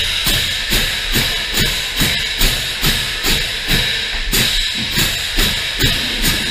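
Marching-band hand cymbals crashing close to the microphone in a steady march rhythm, about two crashes a second, with the drumline's drums playing underneath and the cymbals ringing between strikes.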